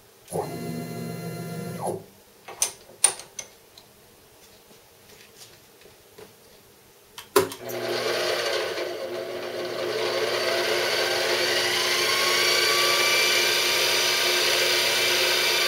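Weiss 30LV benchtop mill's spindle motor: a short burst of motor whine, a few sharp clicks, then another click and the spindle starts up and runs with a steady whine that rises a little in pitch as it gathers speed.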